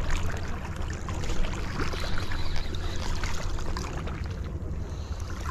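Harbour water sloshing and trickling against the shoreline rocks under a steady low rumble, with scattered small clicks and taps.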